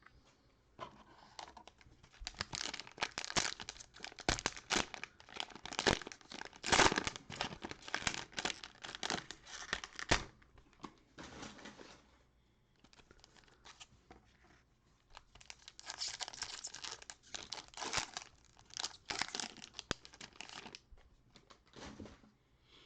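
Cellophane wrapper of a basketball card cello pack being torn open and crinkled, in two long spells of crackling with a short pause between.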